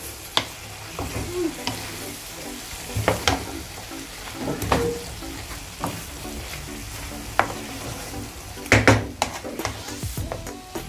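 Sliced sweet pumpkin sizzling in a frying pan as it is stirred with a wooden spatula, with scattered knocks and scrapes of the spatula against the pan, a cluster of them near the end.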